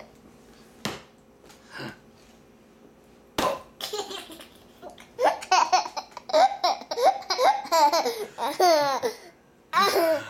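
Baby laughing, a string of short, pitch-falling belly laughs from about halfway in, with a final burst near the end. Before that there is a quieter stretch with a couple of sharp knocks.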